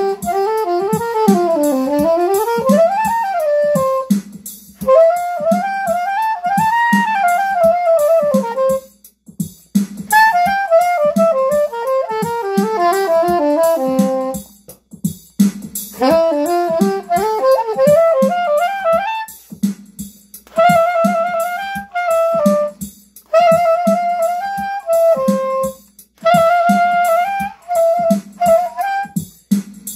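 Soprano saxophone playing melodic phrases over a steady drum beat: flowing runs that climb and fall in the first half, then shorter, choppier repeated notes, with brief breaks between phrases.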